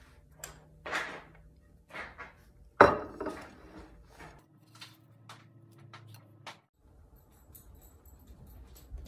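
A dinner plate set down on a wooden table with one sharp clack about three seconds in, among softer knocks, ticks and paper rustling from handling the journal.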